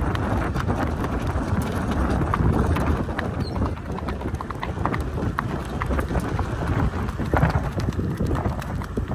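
Hoofbeats of a Kathiyawadi horse cantering on a dirt track: a quick, uneven run of dull thuds over a low wind rumble on the microphone.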